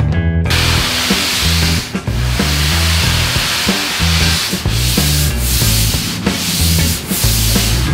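A hand sanding block rubbed over a foam surfboard blank: a loud, even sanding hiss that starts about half a second in, with short breaks between strokes roughly once a second later on. A steady bass line from backing music runs underneath.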